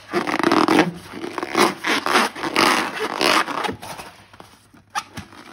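Slime being squeezed and worked by hand: a run of short, noisy strokes a few times a second for about four seconds, then two sharp clicks near the end.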